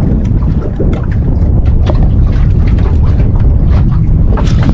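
Wind buffeting the microphone aboard a small boat at sea: a loud steady low rumble with scattered short clicks and knocks.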